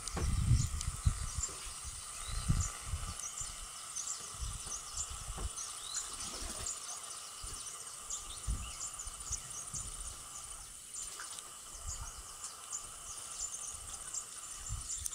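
Outdoor lakeside ambience: many short, high chirping calls from birds over a steady high hum, with low gusts of wind rumbling on the microphone, loudest in the first few seconds.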